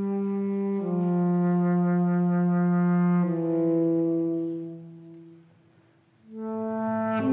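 Tenor saxophone playing slow, long-held low notes that step downward, fading away about five seconds in. After a moment of near silence a new held note enters near the end.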